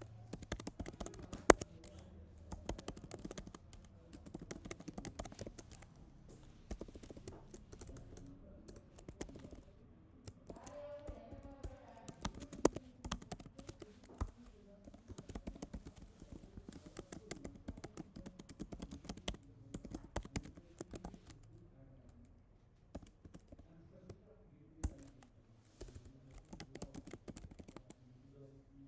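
Typing on a computer keyboard: irregular runs of key clicks with pauses between them, and a few louder, sharper keystrokes.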